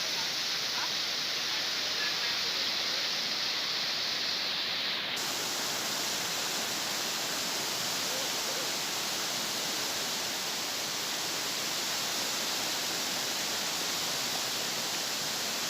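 Steady rushing of a waterfall, an even noise of falling water. The hiss turns brighter about five seconds in.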